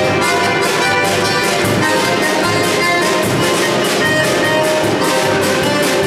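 Small band playing live: violin carrying the melody with accordion and acoustic guitars, over a steady drum-kit beat.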